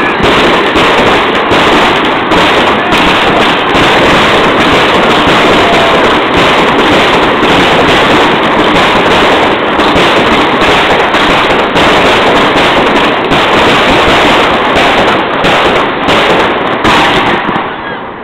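Firework battery firing continuously, its shells bursting overhead in a dense, loud run of bangs and crackle that tails off near the end.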